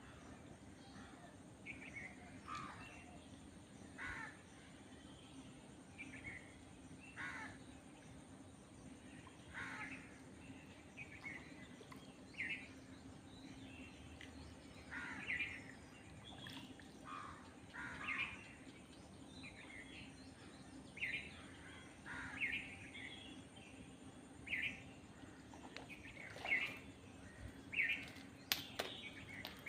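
Birds calling outdoors: short calls repeated every second or two, coming more often toward the end, over a steady low hum.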